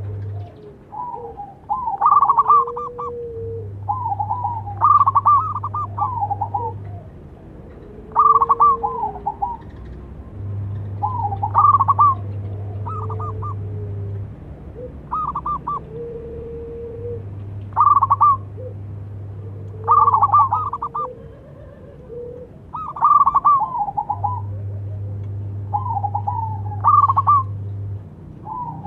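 Zebra dove (perkutut) singing its rolling, stuttering cooing song, about nine phrases each roughly a second long, repeated every three seconds or so.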